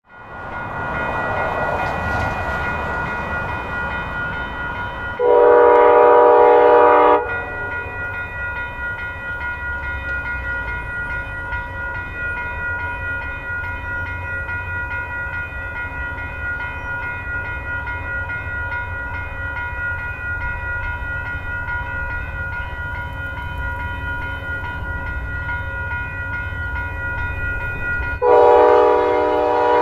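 VIA Rail locomotive's Nathan Airchime horn sounding two long blasts, one about five seconds in and one near the end, signalling the train's approach to a level crossing. Between the blasts a level-crossing bell rings steadily over a low rumble.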